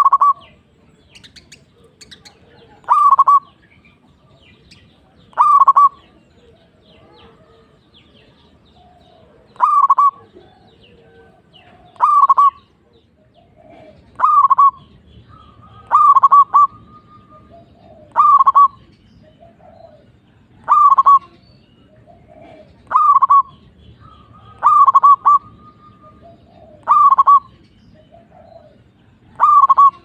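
Zebra dove (perkutut) singing: a short phrase of rapid cooing notes repeated about every two seconds, some thirteen times, a few of them doubled.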